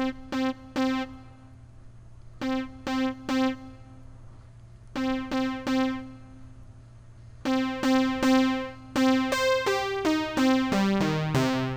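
Analog synthesizer tone played as four groups of three repeated notes on the same pitch. The notes fade out after each key-up, and the fade gets longer from group to group, showing an increasing release time. Near the end a quick run of notes steps downward in pitch.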